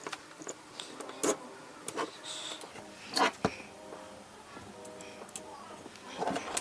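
A few sharp clicks and knocks of small kit parts being handled and fitted, over soft background music.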